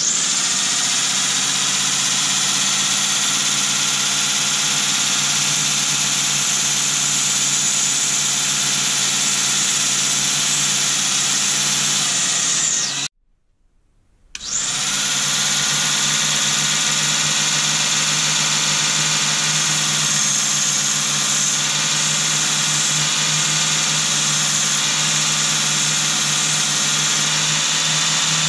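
Homemade four-wheel ball-bearing belt sander, driven by an 18 V cordless-drill motor fed only 12 V from a bench power supply, running steadily with a high whine. About 13 seconds in it is switched off and stops, then starts again a second and a half later and runs on.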